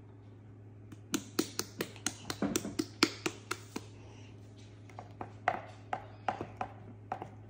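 A hand slapping the bottom of an upturned stainless steel measuring cup to knock thick sour cream stuck inside it out into a plastic bowl: a quick run of sharp taps, about five a second, followed by a few slower scattered taps.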